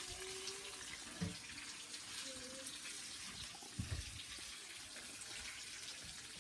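Kitchen tap running into a sink with a steady hiss, and a couple of dull knocks about a second in and again near four seconds.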